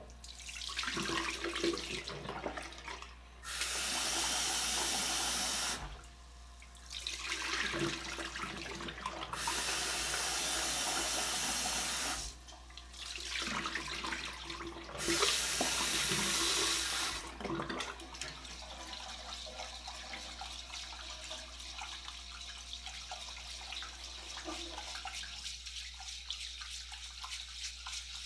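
Rice being washed in a rice cooker's inner pot at a sink: the tap runs into the pot three times for two to three seconds each, with water sloshing and being poured off in between. From about two-thirds of the way through, hands rub and stir the wet grains in the pot, a softer gritty swishing.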